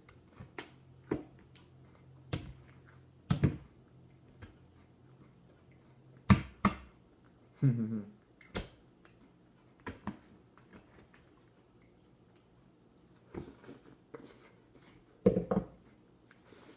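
A giant metal fork clicking and scraping against a plate in scattered sharp taps while food is cut and eaten, with chewing between the taps. Two short closed-mouth 'mm' hums come about halfway through and near the end.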